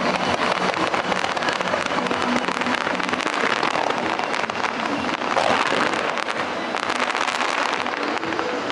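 Fireworks display going off in rapid succession: a dense, continuous crackling and popping of many shell bursts.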